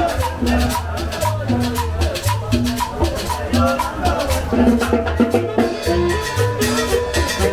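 Live Latin dance music from a street band: a repeating bass line and percussion keeping a steady beat under the melody. A long held note comes in about six seconds in.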